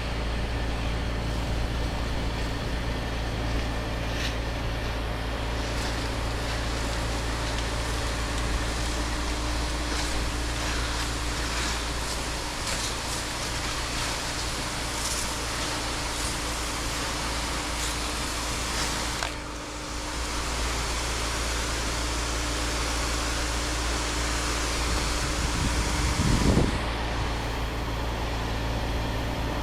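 Pressure washing rig's engine and pump running steadily, with a hiss of spraying water. The sound dips briefly about twenty seconds in.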